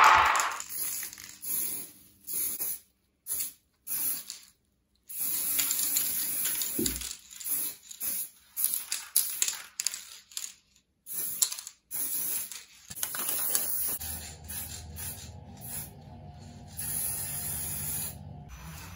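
Aerosol spray-paint can hissing in short bursts, on and off, as red paint goes onto bench grinder housing parts. Near the end the spraying stops and a steady low hum takes over.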